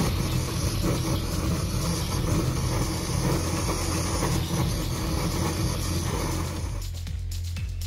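Handheld cartridge gas blowtorch burning with a steady hiss, cutting off about seven seconds in.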